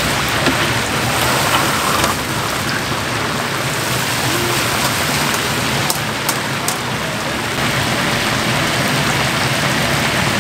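Rice-flour-coated mini blue crabs deep-frying in a wire mesh basket of hot oil: a steady, dense sizzle of bubbling oil. A few sharp ticks come about six seconds in.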